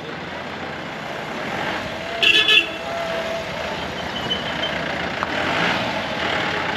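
Busy street traffic noise of jeeps and motorcycles, with a vehicle horn giving two quick high-pitched toots a little over two seconds in.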